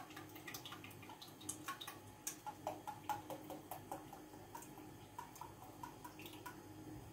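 Sunflower oil being poured into a plastic measuring cup: faint dripping and trickling, with many small clicks and short plinks.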